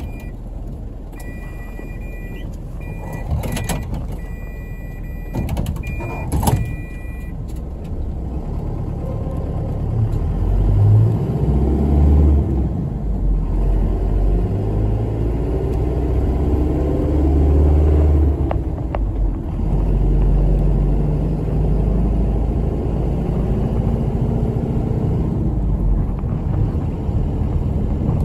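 Bus interior: an electronic two-pitch beeping signal with a couple of knocks over the first few seconds, then the bus engine running, its low rumble growing heavier from about ten seconds in as it works harder.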